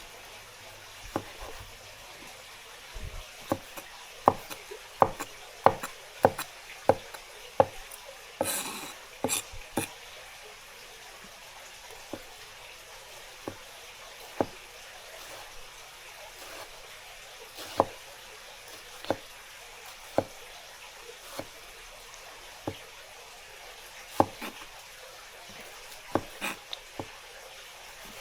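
Kitchen cooking sounds: a utensil clicking and knocking irregularly against a pan over a faint steady sizzle, with a brief louder scrape about a third of the way in.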